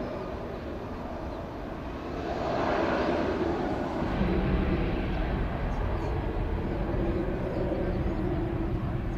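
Airbus A380-861 with its four Engine Alliance GP7200 turbofans running up for the takeoff roll. Steady jet-engine noise grows louder about two seconds in, and a deeper rumble builds from about four seconds on.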